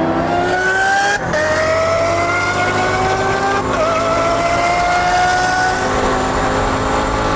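Car engine at full throttle, heard from inside the cabin, climbing in pitch through the gears, with an upshift about a second in and another a few seconds later.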